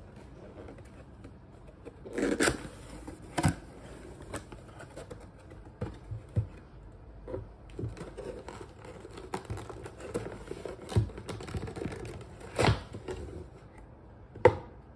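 A white cardboard mailer box handled and opened by hand: scraping and rustling of cardboard as the flaps are pulled open and folded back, with several sharp knocks and snaps, the loudest near the end.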